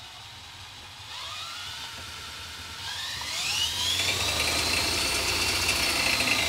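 DeWALT DCD999 cordless drill in high gear, spinning against a disc-brake dyno. Its motor and gear whine rises in pitch from about a second in as it speeds up, then holds steady under the brake's load and starts to drop right at the end.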